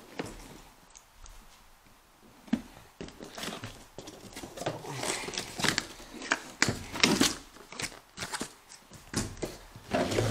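A cardboard toy box being handled and opened: after a quiet start, a sharp knock about two and a half seconds in, then irregular rustling, scraping and crinkling as the flaps are pulled open and the cardboard insert is slid out.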